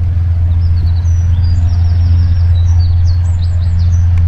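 Single-engine high-wing light aircraft's propeller engine running with a loud, steady drone on its takeoff roll, with small birds chirping over it.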